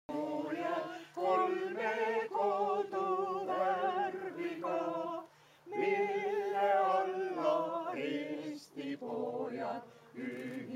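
A group of men and women singing an Estonian patriotic song together, unaccompanied, in phrases of a second or two with a brief pause about halfway through.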